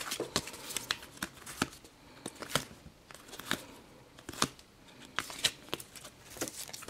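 Stiff, glossy trading cards being leafed through by hand, giving irregular light clicks and snaps as each card slides off and flicks past the next.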